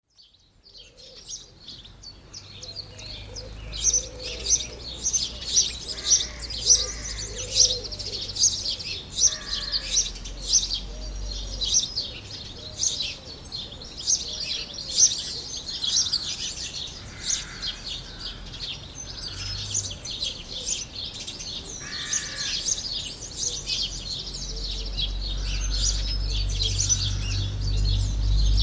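Many small birds chirping together in a dense, continuous chorus of short high calls, fading in over the first couple of seconds, with a low rumble rising underneath near the end.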